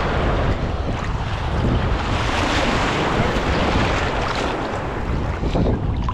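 Wind rumbling on the microphone over water sloshing and splashing at the side of the boat.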